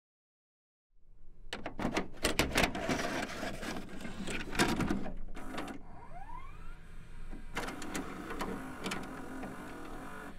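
Video cassette recorder loading a tape: a run of mechanical clicks and clunks with a short rising motor whine in the middle. It starts about a second in.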